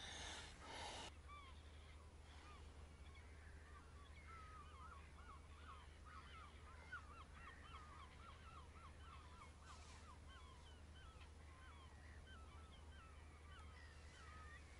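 Faint calling of a flock of geese: many short, overlapping honks, starting about a second in and going on steadily.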